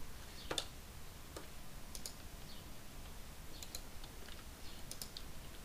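Scattered clicks of a computer keyboard and mouse, about a dozen sharp taps spaced irregularly, several in quick pairs.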